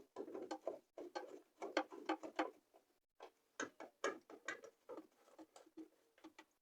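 Irregular run of small metallic clicks and scrapes as door-hinge bolts are threaded in by hand.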